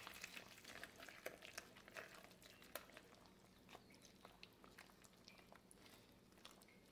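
Faint, irregular clicking and squishing of a wire hand whisk beating thick, fridge-cold malai cream in a steel bowl, the first stage of churning it into butter. The strokes are busiest in the first few seconds and thin out after.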